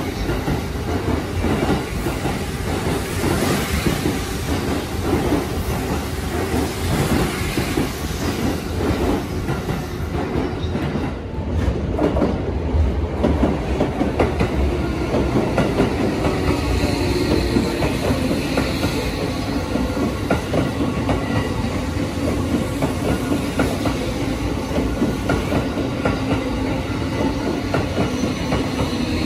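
Electric commuter trains running through the station, wheels rumbling and clicking over the rail joints. About halfway through, a Tokyo Metro 05-series train pulls in and a steady motor whine joins the rumble.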